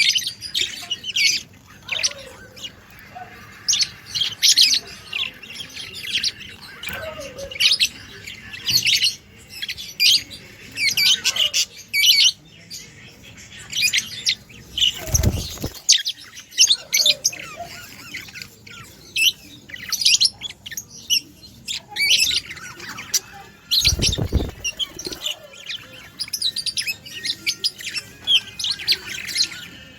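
Budgerigars chirping and chattering continuously in rapid, high twittering calls. Two short, loud low thuds break in, one about halfway through and another about three-quarters of the way in.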